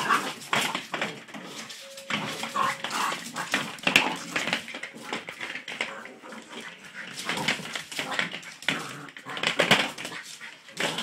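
Border terrier puppy playing, with short whimpers and yips among a busy run of scuffling and quick clicks on the tiled floor.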